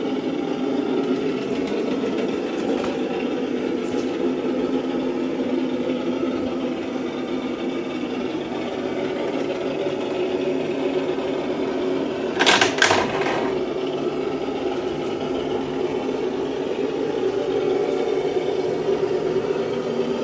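Traxxas TRX-6 Mercedes-Benz G 63 AMG 6x6 RC crawler's electric motor and geared drivetrain whirring steadily as it crawls, with two or three sharp clicks about twelve and a half seconds in.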